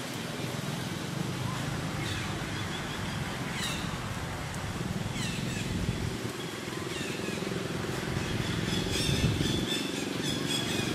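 Outdoor ambience: a steady low rumble with short, high-pitched animal calls that fall in pitch every second or two, and a denser run of high chirping near the end.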